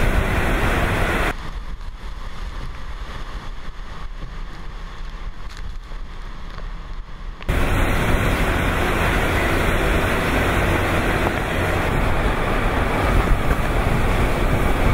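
Typhoon-force wind and driving rain blowing hard across the microphone in a steady rush. From about a second in it turns duller and quieter, then the full rush returns suddenly a little past halfway.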